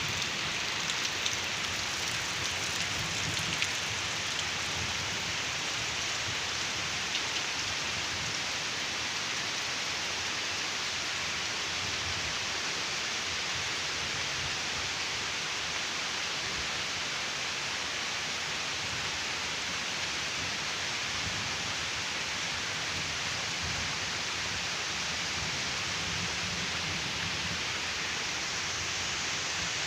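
Heavy rain falling steadily, a dense even hiss, with a few sharp drop ticks in the first few seconds.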